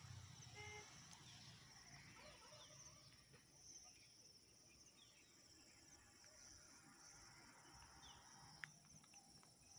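Near silence: faint outdoor ambience with a steady, high insect chirring.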